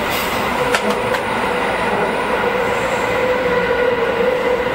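Tokyo Metro 16000 series subway train running through a tunnel, heard from inside the driver's cab: a steady rumble of wheels on rail with a steady high tone over it, and two short clicks about a second in.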